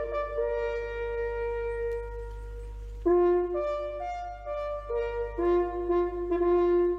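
A brass instrument playing a slow melody. It holds one long note, breaks off about three seconds in, then plays a run of shorter notes of changing pitch.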